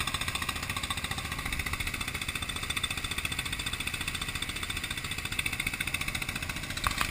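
Boat engine running steadily with a fast, even pulsing.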